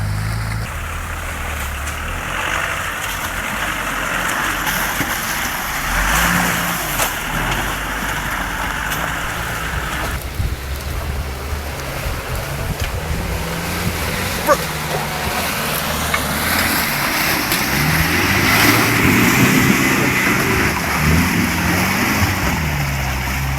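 Off-road 4x4's engine running at changing revs while driving through mud, the revs climbing for a few seconds about three quarters of the way through, over a steady rushing noise.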